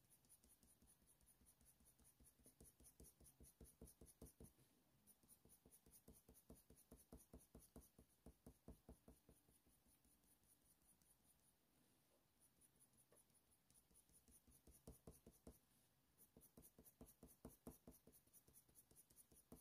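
Faint scratching of a Faber-Castell Polychromos coloured pencil on hot-press watercolour paper, laid down in quick short strokes, several a second, in runs with brief pauses between them.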